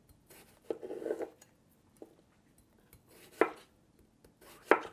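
Chef's knife slicing a peeled cucumber into rounds on a wooden cutting board: slow, separate knocks of the blade reaching the board, a quick cluster about a second in and single sharper ones, the loudest near the end.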